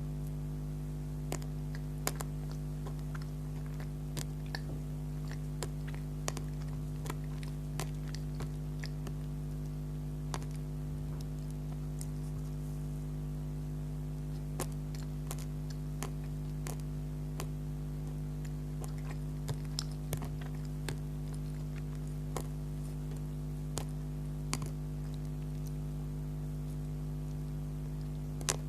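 Close-miked chewing of soft bakery food: irregular sharp little mouth clicks and smacks over a steady electrical hum.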